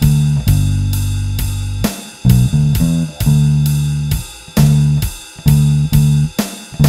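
Squier Bronco electric bass with a Nordstrand NM4v angled-pole pickup, through a Seymour Duncan Studio Bass Compressor, playing a bass line of held low notes and short quicker notes, over a drum kit beat with steady regular hits about twice a second.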